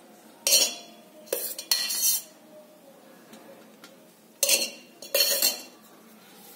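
Metal spoon clinking against stainless-steel dishes as ghee is spooned onto a plate: three clinks in the first two seconds and two more about four and a half seconds in, each with a short metallic ring.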